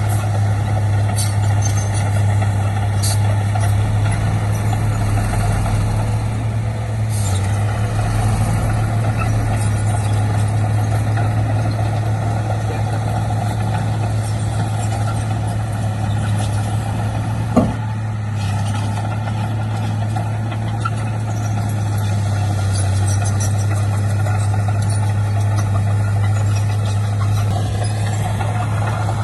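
Heavy diesel earthmoving machinery running steadily under work, with one short sharp knock about two-thirds of the way through.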